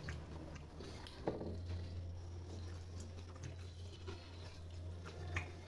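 Faint eating sounds: fingers scraping and picking food scraps off a steel plate, with scattered small clicks and mouth sounds, over a steady low hum that sets in about a second in.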